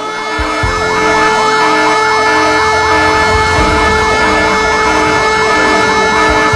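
Emergency siren in a fast yelp, rising and falling about three times a second over steady tones. It starts loud just under a second in, after two low thumps.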